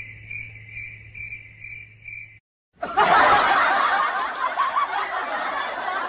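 A faint high tone pulses a little over twice a second and stops about two and a half seconds in. After a short gap, people laugh loudly.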